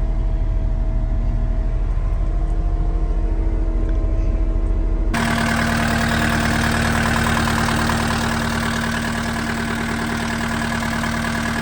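Cat 259D3 compact track loader's C3.3B diesel engine running steadily. About five seconds in, the sound changes suddenly to a brighter, harsher running sound with a steady hum.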